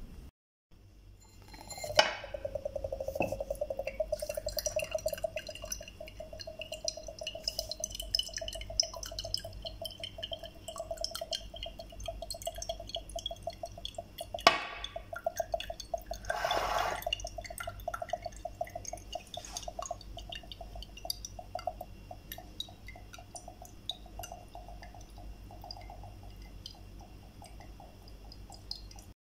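Coconut water dripping and trickling out of an upturned, pierced coconut into a drinking glass, a fast steady patter of drops. There are sharp knocks about two seconds in and again near the middle.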